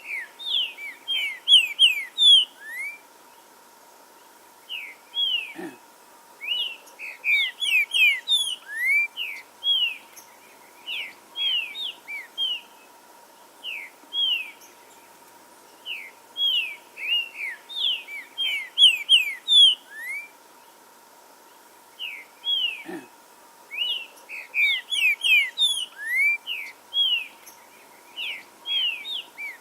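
Green-winged saltator (trinca-ferro) song: runs of loud, short whistled notes, rising and falling, coming in bursts with two pauses of a couple of seconds. A faint steady tone runs underneath.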